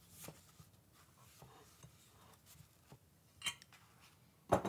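Faint rubbing as butter is smeared around the inside of a baking dish to grease it, a short scrape about three and a half seconds in, and near the end a sharp knock as the dish is set down on the counter.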